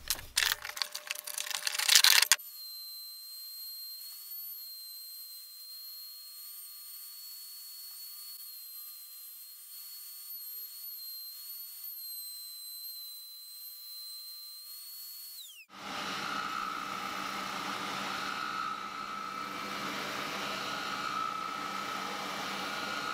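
Bar clamps clicking and rattling as they are tightened on a glued maple neck blank. Then a table-mounted router runs with a steady high whine while a maple guitar neck is routed on it, stopping about fifteen seconds in. After it, an oscillating spindle sander runs, louder and fuller, with a steady motor hum under the sanding of a small block of wood.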